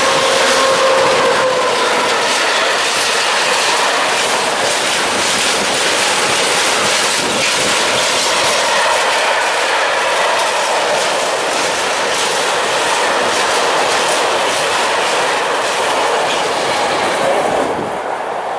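Freight train of tank wagons hauled by an electric locomotive passing close by: a steady rumble of wheels on rail with rapid clicking as the wagons cross rail joints. A held tone sounds in the first second or so as the locomotive goes by, and the noise falls away near the end as the last wagons pass.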